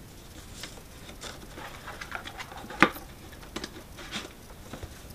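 Cardboard packaging being handled: a cardboard tray scraping and rustling as it slides into its white cardboard box sleeve, with light taps and one sharp knock a little under three seconds in.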